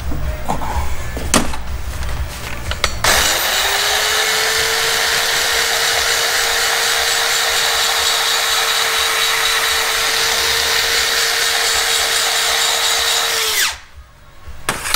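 Handheld grinder grinding metal out of a cylinder head's port. It spins up about three seconds in to a steady high whine with a strong hiss, runs evenly for about ten seconds, and stops abruptly near the end.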